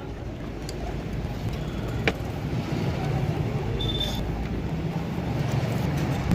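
Steady road-traffic background noise, with a single sharp click about two seconds in and a brief high squeak just before four seconds.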